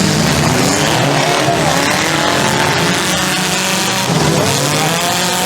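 Several demolition derby cars' engines revving hard as they race a figure-8 track, with several engine pitches rising and falling over one another.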